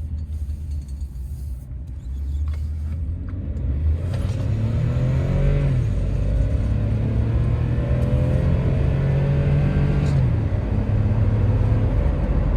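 Ford 3.5-litre EcoBoost twin-turbo V6 in a 2013 F-150 pulling under wide-open-throttle acceleration. It gets louder and climbs in pitch, then drops back at about 6 and 10 seconds as the transmission upshifts. This is the test run after new spark plugs and a new number 3 ignition coil, which the owner says cured the misfire under load.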